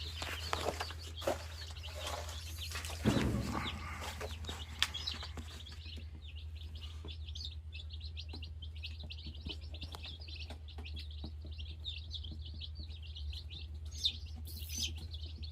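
Many day-old Delaware chicks peeping, a dense run of rapid high chirps. In the first few seconds there are rustling and knocking sounds from the chicks being handled, with a thump about three seconds in, over a steady low hum.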